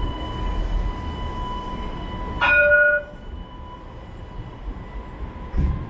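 Alstom Citadis tram pulling away from the platform: a steady electric whine over a low rumble, with one short horn blast, the loudest sound, about two and a half seconds in. A brief thud comes near the end.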